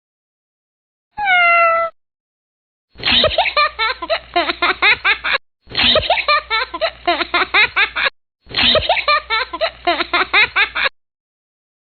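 A single kitten meow about a second in, followed by three repeats of the same stretch of rapid, high-pitched pulsing calls, each starting and stopping abruptly.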